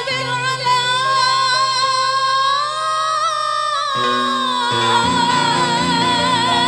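Woman singing in qasidah/gambus style. She holds one long, slightly rising note for about four seconds, then begins a new ornamented phrase with a wavering pitch. Keyboard accompaniment plays sustained chords beneath her, changing chord about four seconds in.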